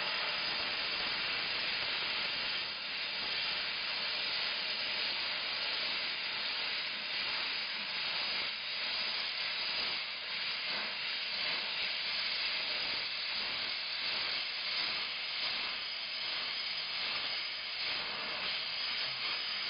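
KKC steam mop letting out steam in a steady, continuous hiss.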